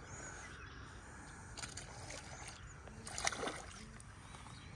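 Hooked fish splashing at the pond surface as it is reeled in: two brief splashes, one about a second and a half in and a louder one around three seconds in.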